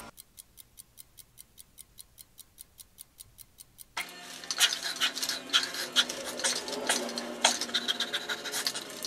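Fast, even clock-like ticking, about five ticks a second, over a dead-quiet background. About four seconds in it cuts abruptly to music.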